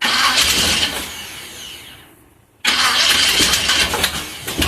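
1946 International KB truck engine being started twice, primed with poured-in gas. Each try begins suddenly and dies away after about two and a half seconds without the engine settling into a steady run.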